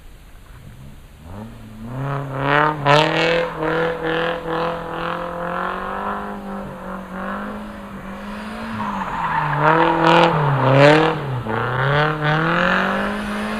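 Drift car's engine revving high and held steady as the car slides, with tyres screeching against the pavement. Faint at first, it grows loud within the first two seconds, and later the revs dip and climb again several times as the driver works the throttle through the slide.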